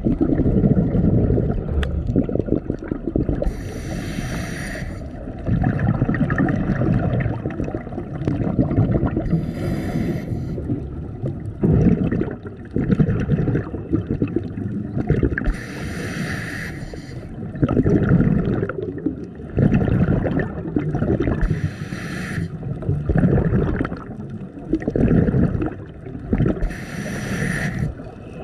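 Scuba diver breathing through a regulator underwater: a short hiss on each inhale, five times about six seconds apart, each followed by the rumbling gurgle of exhaled bubbles.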